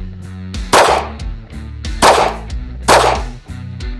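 Beretta APX A1 full-size semi-automatic pistol firing three shots, about a second apart. Background music with steady low notes plays under the shots.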